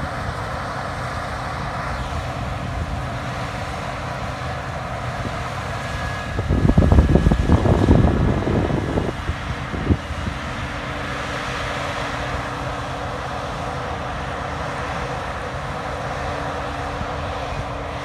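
Claas Trion 650 combine harvester running steadily while harvesting, its engine and threshing machinery giving a constant hum, with a tractor and grain trailer working alongside. A louder, rougher rush lasts about three seconds near the middle.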